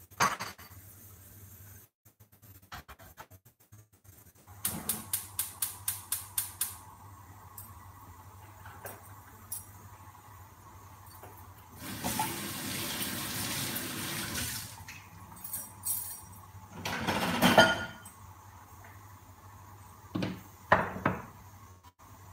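Gas stove igniter clicking rapidly, about fourteen clicks, as a burner is lit. A tap runs for about three seconds, followed by a few kitchen knocks and clatters.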